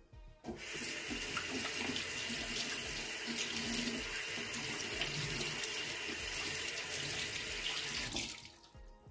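Kitchen tap running into a sink while hands are rinsed under it. The water comes on about half a second in, runs steadily, and shuts off about a second before the end.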